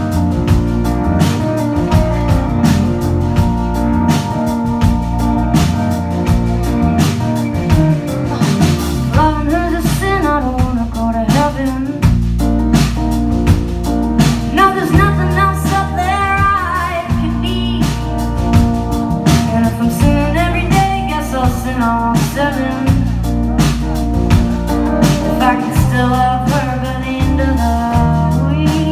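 Live band playing a song: electric guitar, bass guitar and drum kit, with a woman's lead vocal coming in about nine seconds in.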